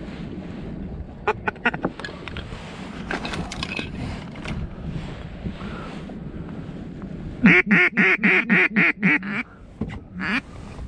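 A loud run of about nine quacks, each a little fainter than the last, over about two seconds, from a duck call or a hen mallard. A single short quack follows near the end, and a few faint short calls come earlier.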